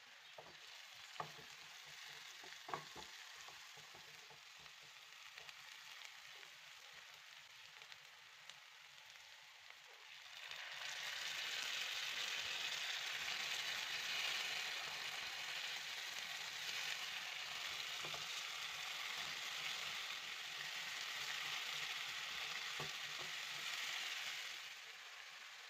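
Chopped onions and garlic paste frying in oil in a nonstick pan: a soft steady sizzle with a couple of sharp taps of a utensil early on. About ten seconds in, tomato paste goes into the hot oil and the sizzle becomes much louder as the mixture is stirred, then drops back near the end.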